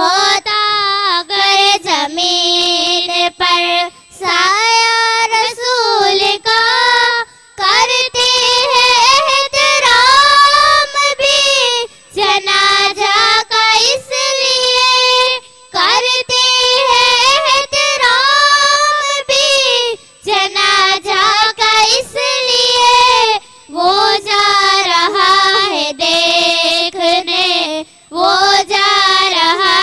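Two young girls singing a naat (devotional song in praise of the Prophet) into microphones, without instruments, in phrases a few seconds long with short breaks between them.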